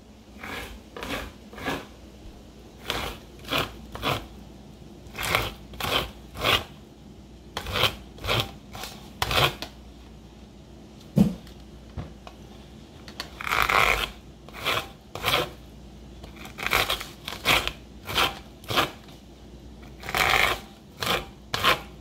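Ears of sweet corn pushed along a stainless steel corn cutter's blade over a steel bowl, a run of short scraping strokes, often one or two a second, with a few longer strokes and one sharp knock near the middle.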